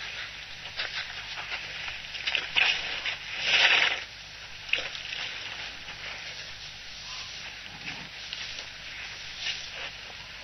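Elephants drinking at a waterhole: a steady crackling, hissing noise with one louder rushing burst about three and a half seconds in.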